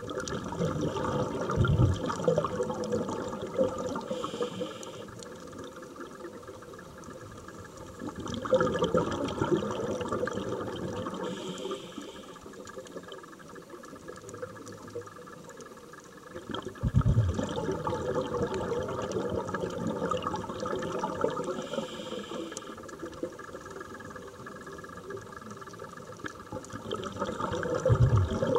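Scuba diver's regulator breathing underwater: a rushing burst of exhaled bubbles about every eight or nine seconds, four in all, with a fainter hiss of each inhale in between.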